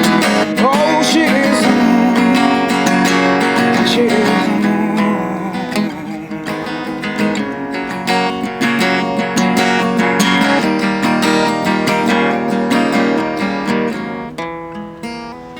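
Acoustic guitar strumming chords as a song ends, growing gradually quieter toward the end.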